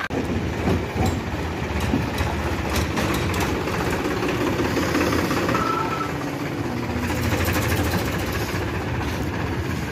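Powertrac Euro 50 tractor's diesel engine running steadily as the tractor drives past.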